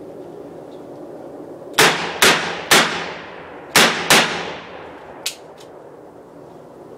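Five shots from a .357 Magnum gun, three in quick succession then two more after a short pause, each loud crack echoing away for about a second. Two fainter, sharper pops follow shortly after.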